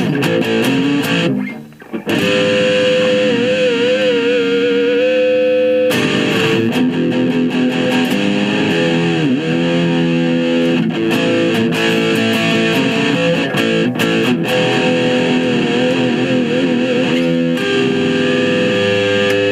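Yamaha SE350H electric guitar played through a Roland Micro Cube amp: held notes and chords, some notes wavering and dipping in pitch, with a short break about a second and a half in.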